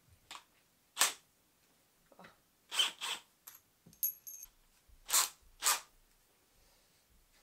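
Small hardware and a cordless drill being handled: about nine short, sharp clicks and rattles at irregular intervals, with a brief metallic ring about four seconds in.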